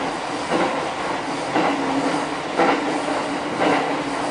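Commuter train running, heard from inside the car: the wheels clack over rail joints about once a second over a steady low hum and rumble.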